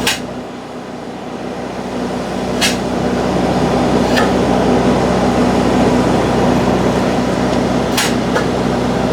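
Polyurethane foam injection rig pumping foam under pressure: a steady mechanical hum and hiss that builds up over the first few seconds, broken by four short sharp clicks or hisses.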